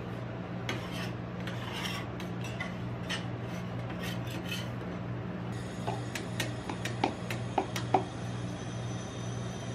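Metal spatula scraping across the metal cold plate of an ice-cream roll machine, then several sharp clicks and taps of the spatula near the end as rolls are lifted into a paper cup, all over a steady low hum.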